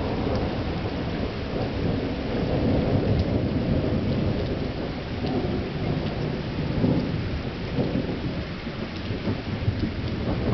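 Rolling thunder rumbling without a break, swelling about three seconds in and again around seven seconds.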